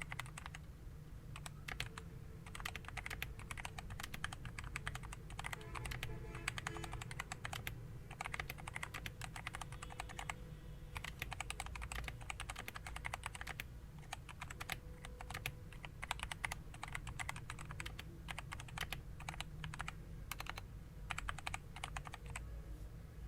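Typing on a Dareu EK925 II full-size keyboard with Dareu's own optical switches: a continuous run of rapid, irregular key clicks.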